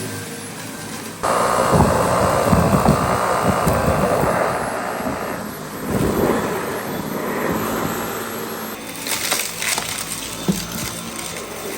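Dyson V8 cordless stick vacuum cutting in suddenly about a second in, its motor giving a steady high whine, with dense crackling and rattling of debris being sucked up through the wand. The whine drops away about halfway through, while crackles of debris carry on.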